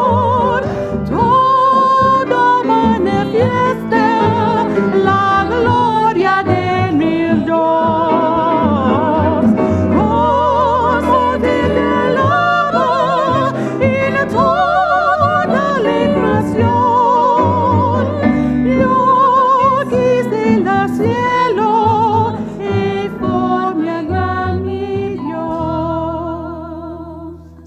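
Two women singing in harmony with vibrato over a small jazz band of upright bass, piano and drum kit. Near the end they hold a final note while the music fades out.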